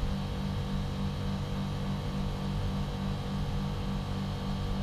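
Compressor of a TCL ductless split air conditioner's outdoor unit running with a steady low hum during a defrost cycle, its outdoor fan stopped.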